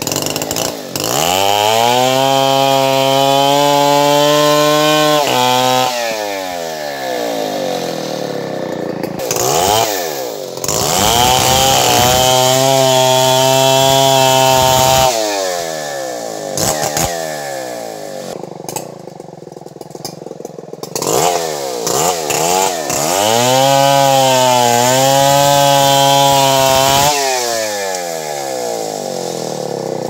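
Stihl MS 070 two-stroke chainsaw cutting through a kapok log. It revs up to full throttle three times, each burst rising in pitch and held for a few seconds, and drops back to a lower, quieter run between cuts.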